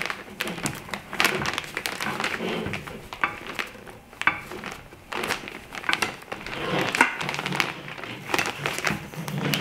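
Silver reflector fabric crinkling and rustling as it is handled, with scattered clicks and taps throughout.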